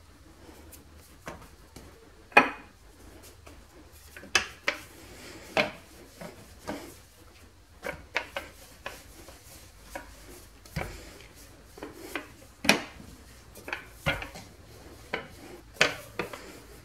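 Stainless-steel rolling pin worked over dough on a granite worktop, with a dozen or so sharp, irregular knocks and clatters of metal on stone; the loudest comes about two seconds in.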